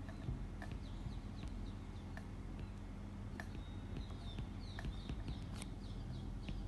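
Faint irregular ticks and taps of a stylus writing on a tablet over a steady low electrical hum, with a few faint high chirps about two-thirds of the way in.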